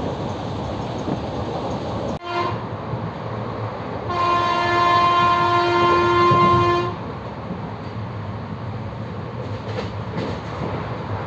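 Passenger train running with a steady rumble, and a train horn that gives a brief toot about two seconds in, then a steady blast of about three seconds around the middle.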